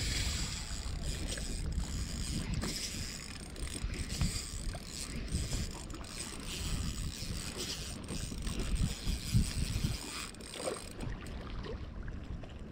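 Daiwa Fuego 3000 LT spinning reel being cranked while playing a hooked fish on a bent rod, with a low rumble of wind on the microphone that drops off about ten seconds in.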